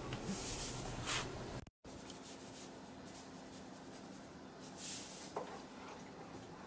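Soft rubbing and handling noise, cut off by a brief dropout. About five seconds in comes a short rustling hiss as dry pasta is shaken from its box into a pot of boiling water, followed by a small click.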